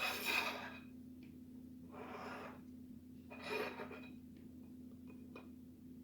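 Trading cards being handled and flipped: three short papery swishes of cards sliding against each other, with a few light clicks, over a steady low hum.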